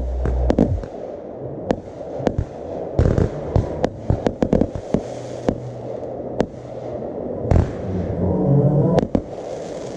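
Aerial fireworks bursting in the sky: an irregular run of sharp bangs and crackles, most crowded between about three and five seconds in.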